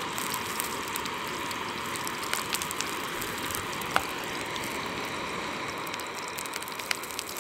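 Wood ear mushrooms frying in hot fat in a pan, a steady sizzle spattered with small pops and spits, one sharper pop about four seconds in.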